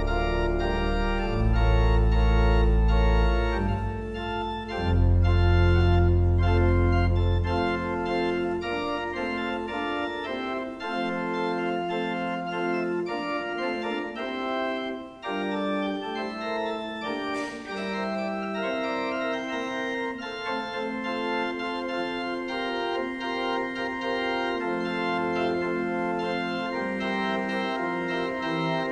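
Organ playing slow, held chords. Deep pedal bass notes sound for the first several seconds and then drop out, leaving sustained chords in the middle and upper range.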